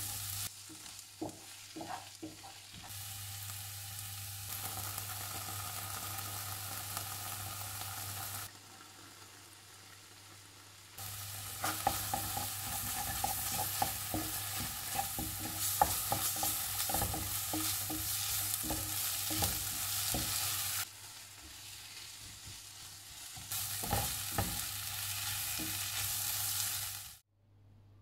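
Sliced onion and carrot sizzling in oil in a frying pan while a wooden spatula stirs them, scraping and tapping against the pan; tomato paste and ground spices are frying in with them. The sizzle drops away and comes back several times and cuts off suddenly near the end.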